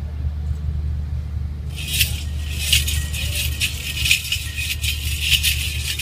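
Small bells and ornaments on a decorated bull's harness jingling in quick, irregular shakes as the bull is led walking, starting about two seconds in. A steady low hum runs underneath.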